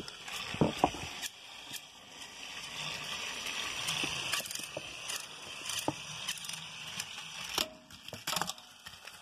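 Small battery-powered toy train motors whirring steadily, with sharp clicks and knocks from plastic track pieces and engines being handled, mostly near the start and near the end.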